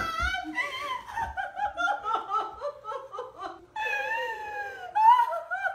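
A woman crying with joy at a surprise reunion, in short gasping sobs and laugh-like cries, with one long falling wail about four seconds in.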